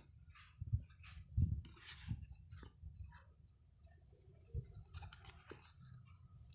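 Hands handling a foam-backed sanding pad and a piece of plywood: scattered light knocks, clicks and rustles at irregular moments.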